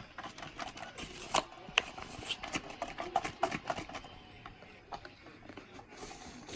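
Irregular light clicks and knocks of a toy washing machine being handled and picked up.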